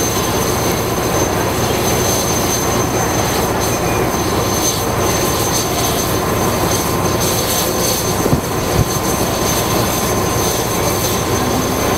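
Steady rushing hiss from the steam locomotive No. 9351 standing in steam as it is turned, with a thin high whistle running through it. Two short knocks come about eight seconds in.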